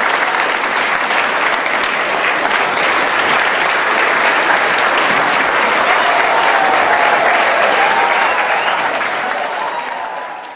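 A large audience applauding, dense, steady clapping, with a few voices calling out over it in the second half; it fades out at the very end.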